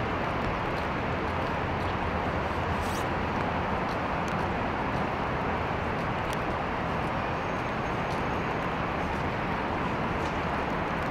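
Steady rain falling on a wet paved plaza, an even hiss with a low rumble underneath.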